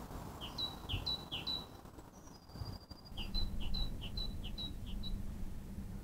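A small songbird singing a repeated two-note phrase, a short falling note followed by a higher whistled note: three times, then after a short pause five times more.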